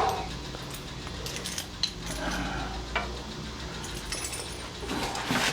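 Scattered light metallic clicks and clinks as door-knob and lock hardware is handled and fitted.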